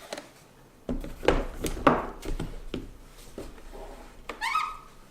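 Irregular knocks, taps and rubbing from handling a plastic electric-kettle base and its power cord, starting about a second in, with a brief squeak near the end.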